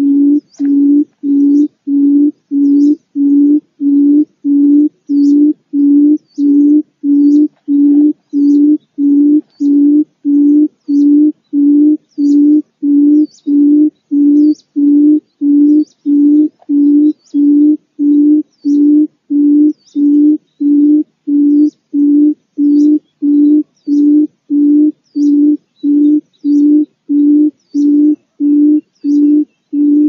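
Barred buttonquail giving its low booming call: a deep hooting note repeated evenly, about one and a half times a second, with faint high chirps above it.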